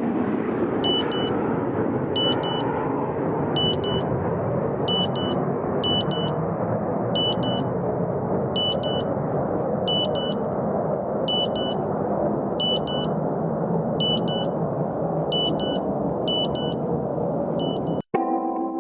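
Alert-tone sound effect: a high electronic double beep repeating about once a second over a steady jet-engine roar. Near the end the whole thing cuts off abruptly and synthesizer music begins.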